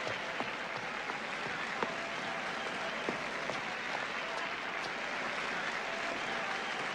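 Large crowd applauding steadily, a dense wash of clapping with scattered sharper claps standing out.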